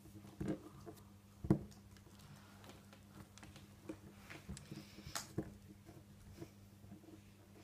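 Hands pressing, rolling and patting a lump of Play-Doh on a tabletop: soft irregular taps and pats, one louder thump about a second and a half in, over a faint steady low hum.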